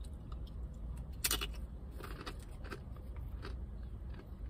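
Chewing on a tortilla chip loaded with bean dip: a scatter of crisp crunches, the loudest about a second in, over a steady low hum.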